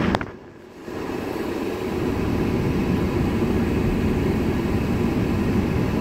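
A Cat 336F hydraulic excavator's diesel engine runs with a steady heavy rumble as it works a demolition rubble pile. The sound drops out briefly just after the start.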